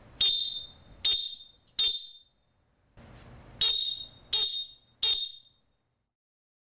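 Referee whistle blown in two sets of three short, sharp, high-pitched blasts, each starting abruptly and cut off cleanly.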